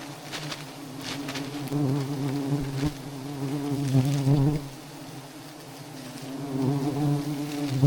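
A swarm of honeybees buzzing, a steady wavering drone that swells louder twice.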